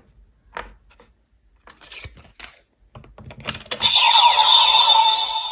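Hard plastic clicks and rattles as Ride Chemy cards are handled and slotted into a DX Gotchard Driver toy transformation belt. Nearly four seconds in, the belt starts a loud electronic sound effect as the card goes in and its lights come on.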